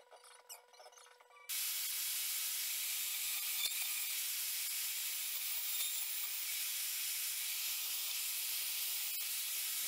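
Power saw cutting through an Osage orange knife handle: a steady, even hiss that starts abruptly about a second and a half in and holds level throughout.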